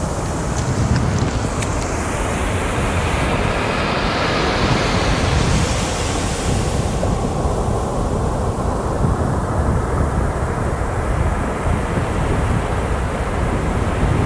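Ocean surf with wind buffeting the microphone, a steady low rumble. A wave washes in with a rising hiss about four seconds in, fading by seven.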